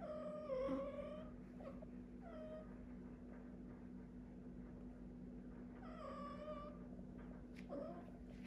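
Domestic cat meowing in drawn-out calls: a long call at the start, two short ones soon after, another long call about six seconds in and a short rising one near the end. A steady low hum runs beneath.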